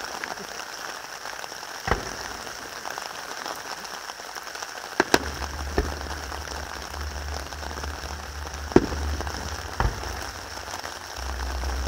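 Distant aerial fireworks with a steady crackling, rain-like hiss from crackling star bursts, broken by about five sharp bangs of bursting shells. A low rumble comes in about five seconds in.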